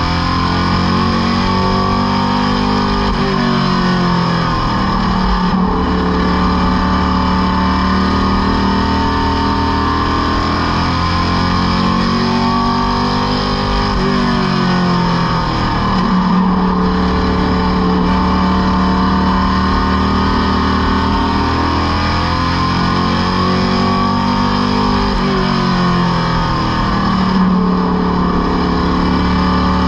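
Superstock race car engine at racing speed, heard from inside the cockpit. Its pitch drops three times, roughly every eleven seconds, as the driver lifts for the turns, and holds or climbs again along the straights.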